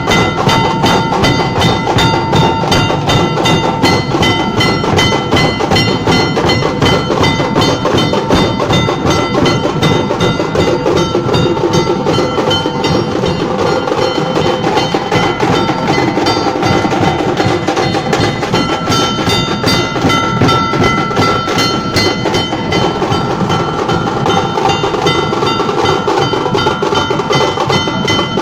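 Nashik dhol drumming: dhol drums beaten in a fast, dense, unbroken rhythm, with steady metallic ringing tones over the strokes.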